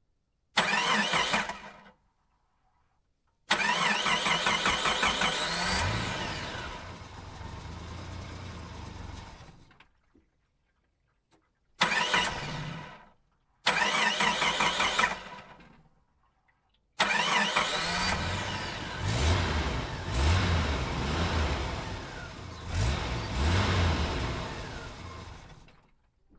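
An engine starting and revving in five separate bursts, each beginning abruptly and separated by short silences; the two longest rise in pitch as it revs.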